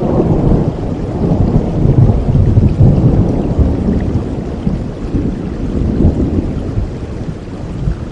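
A long roll of thunder rumbling over steady rain. It is loudest in the first few seconds and fades toward the end.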